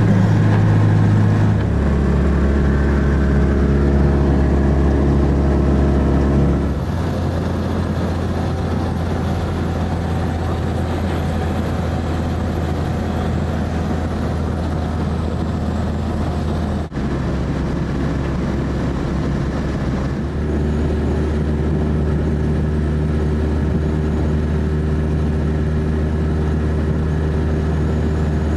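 Car engine and road noise heard from inside the moving cabin: a steady low drone that jumps to a new pitch suddenly a few times.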